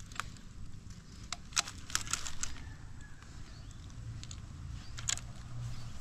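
Dry leaf litter crackling in scattered clicks as it is shifted under hands and body, over a low steady hum.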